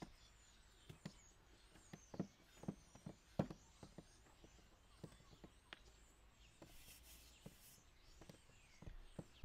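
Faint, irregular soft clicks and squishes of gloved hands working food in an enamel basin, a few stronger ones between about two and three and a half seconds in. Faint bird chirps sit high above them.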